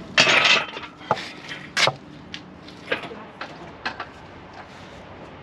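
A short burst of noise, then irregular sharp metallic clinks and knocks, about a dozen over four seconds, from work on a car's subframe and hoist.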